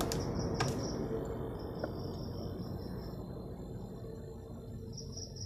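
Low room noise with a faint steady hum, and faint high chirping in a few stretches, like insects or birds in the background. Two light clicks come just at the start.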